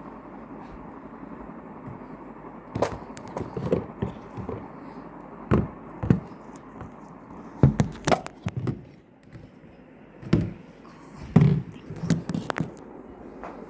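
Irregular knocks, clicks and rustles of a board game's cardboard and plastic pieces being handled and set down, over a steady background hiss.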